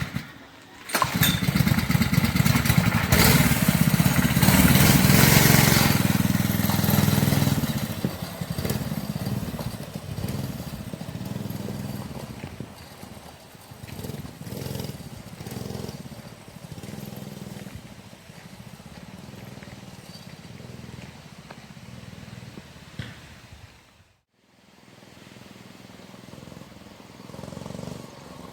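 6 hp single-cylinder engine of a homemade mini bike, running loud close by, then pulling away as the bike is ridden, its note rising and falling with the throttle and fading with distance. It cuts off abruptly about 24 seconds in, then is heard again fainter, growing louder near the end.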